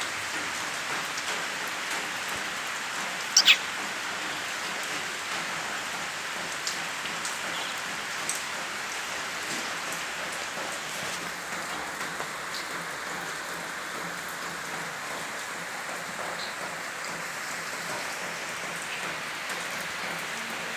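Steady hissing noise like light rain, with scattered soft ticks and one brief, sharp sound about three and a half seconds in.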